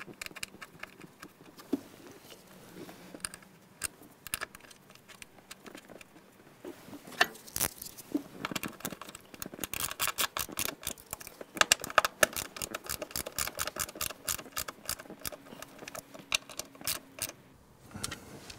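Hand screwdriver driving two sheet-metal screws to fasten a throttle-linkage swivel mount: scattered small clicks and scrapes at first, then rapid clicking from about seven seconds in as the screws are turned down.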